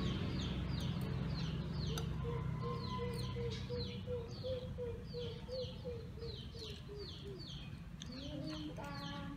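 Chickens calling: a steady run of short, high, falling peeps, about two to three a second, with a series of lower clucks from about two to seven seconds in and a rising call near the end.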